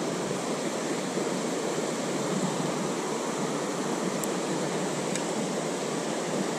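Shallow river running steadily over rocks and riffles, a constant rush of flowing water.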